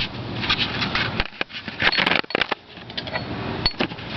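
Irregular metallic clicks, clinks and rattles of hand tools being worked against the car's underside, a handful of sharp knocks scattered through.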